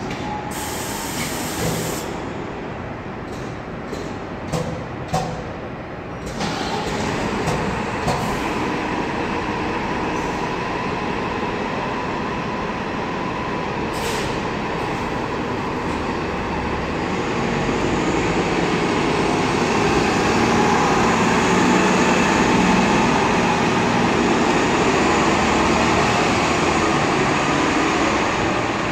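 Diesel engine of a Nova Bus LFS city bus starting up: a hiss of air and a few clicks, then the engine catches about six seconds in and runs steadily. A brief air hiss comes midway. The engine then grows louder as the bus pulls away, echoing in the enclosed concrete bus bay.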